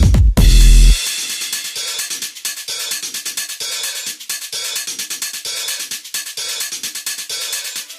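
Electronic dance music. A heavy bass note cuts out about a second in, leaving a fast, steady hi-hat and cymbal beat.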